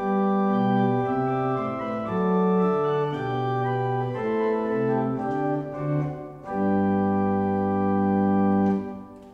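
One-manual Hewitt pipe organ playing a short chordal passage on its bright 4-foot Gemshorn stop, a mechanical-action pipe sound. After a brief break about two-thirds of the way through, a final chord is held and then released near the end, with a short reverberant tail.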